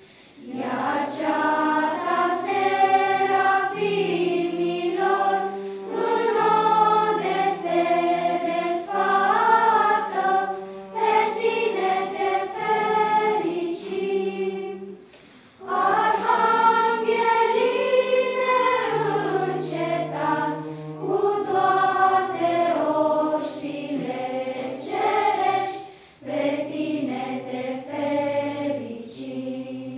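Children's choir singing in several parts over a steady held low note, with short breaks between phrases about halfway through and again near the end.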